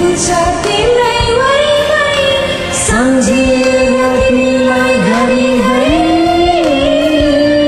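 A woman singing a Nepali song in long, held notes that slide between pitches, over a karaoke backing track.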